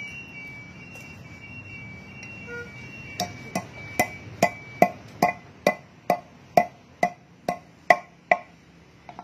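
Steel hand hammer striking a metal part at the centre of a wheel hub, driving it into the hub bore: about thirteen sharp blows with a short metallic ring, roughly two or three a second, starting about three seconds in. A faint steady high whine sounds in the background during the first half.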